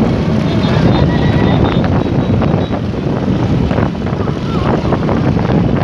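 A pack of motorcycles running together along a dirt track, heard from one of the moving bikes, with heavy wind buffeting the microphone.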